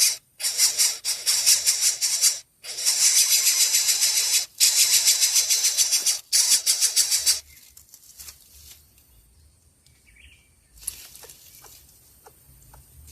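Young bird begging to be fed: loud, high, raspy calls in rapid bouts with short pauses. The calls stop about seven seconds in, followed by faint clicks and a single short chirp.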